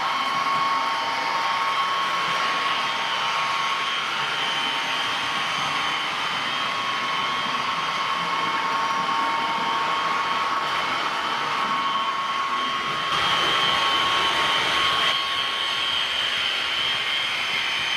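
Model V200 diesel locomotive running on the layout track: a steady whirring with a few fixed high tones. It grows louder for a couple of seconds about two-thirds of the way through.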